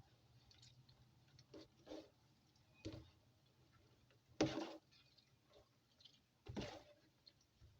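Hands working small dried fish in a bowl of hot water, giving a few short splashes and clinks, the loudest about halfway through.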